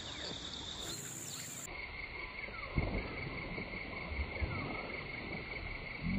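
Insects droning, one continuous high-pitched note over a soft outdoor hiss; the pitch drops at an edit about a second and a half in. A soft low thump sounds near 3 seconds, with a few lighter knocks after it.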